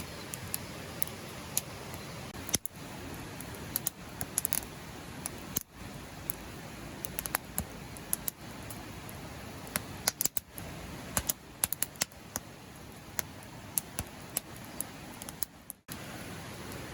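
Firewood crackling as it burns in a campfire pit: scattered sharp pops at an irregular pace over a steady hiss. The sound cuts out briefly three times.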